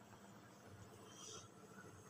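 Near silence: faint room tone, with a soft faint hiss about a second in.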